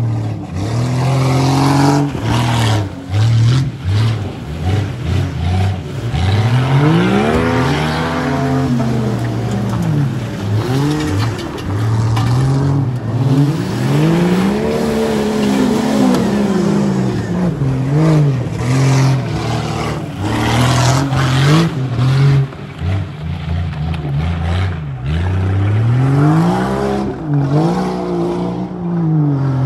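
Jeep Cherokee XJ engine revving hard, its pitch rising and falling again and again every second or two as it is driven through mud, with scattered knocks.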